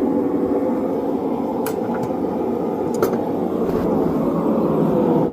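Steady, muffled roar of a running blacksmith's forge, heard from inside a pocket, with a couple of light clicks.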